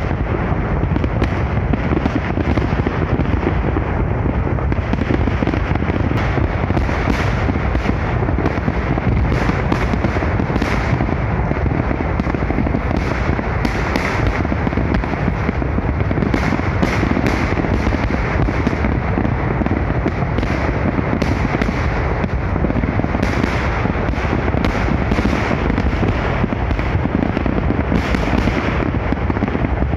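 A massive fireworks salute: a continuous barrage of rapid fireworks bangs that overlap into one unbroken rumble, with sharper cracks standing out throughout.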